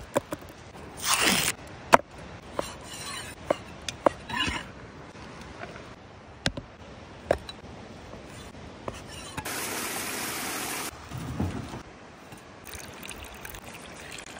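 Close-up food-preparation sounds on a thick wooden board: a string of sharp taps and knocks as food and a cleaver are set down and worked, a brief swish about a second in, and a steady hiss of about a second and a half past the middle that starts and stops abruptly.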